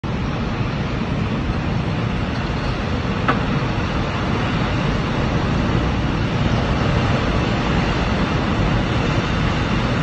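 Debris flow of water, mud and rock surging down a mountain creek in flood: a steady, loud, deep rumble.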